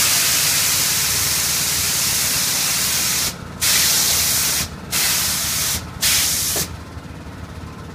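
Loud hiss of compressed air venting from a flying-elephant ride's pneumatic lift, broken three times by short gaps and cutting off sharply about six and a half seconds in.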